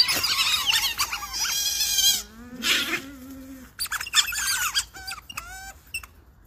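Several otters squeaking and chirping in quick, high, sliding calls, with a lower held sound lasting about a second midway.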